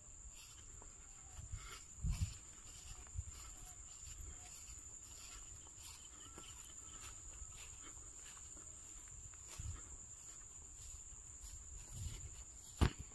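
Insects in a rice paddy droning in one steady high tone, over faint rustling, with scattered low bumps and a sharp knock near the end.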